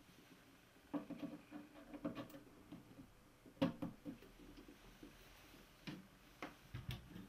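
Irregular knocks and clicks from handling the Aoyue INT852A+ hot air rework station's metal case and rear power cable as it is made ready to switch on. The sharpest click comes about three and a half seconds in, with a few lighter knocks near the end.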